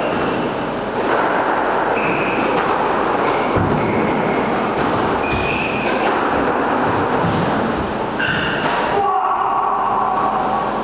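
Squash being played: the ball striking rackets and walls with sharp thuds, and rubber-soled court shoes squeaking briefly on the wooden floor.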